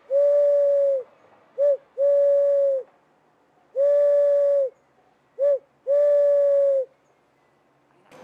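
A person imitating an owl's hoots: two series of three steady, even-pitched hoots, long, short, long, with a pause between the series.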